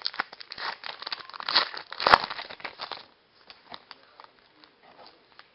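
A trading-card pack wrapper being crinkled and torn open, with the loudest rip about two seconds in. After about three seconds only faint scattered clicks of cards being handled remain.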